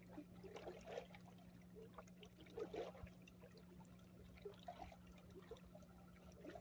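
Faint lapping of lake water against shoreline rocks, in small irregular splashes, over a faint steady low hum.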